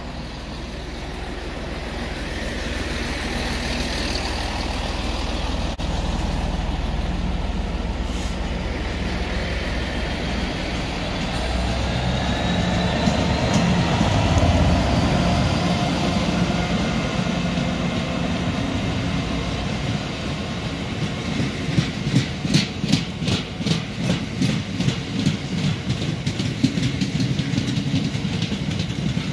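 Class 66 diesel locomotive, with its two-stroke V12 engine, running through the station at the head of a tank-wagon freight train. The engine's deep rumble builds to its loudest about halfway. The tank wagons then roll past with a fast, rhythmic clickety-clack of wheels over rail joints.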